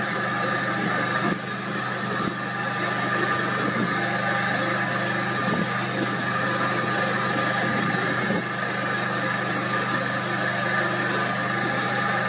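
Steady low hum of an idling engine under a constant rush of wind noise.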